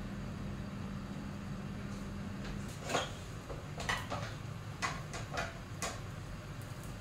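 Light knocks and clatters of cookware and a metal tin being handled, about half a dozen in quick succession over three seconds. A steady low hum stops just before they begin.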